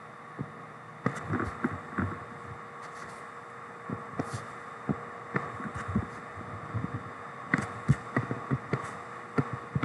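Irregular light clicks and taps from drawing line segments on a computer, over a steady faint electrical hum.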